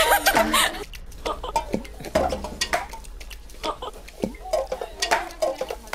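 A girl laughing and squealing, followed by scattered clicks and knocks and short snatches of voices.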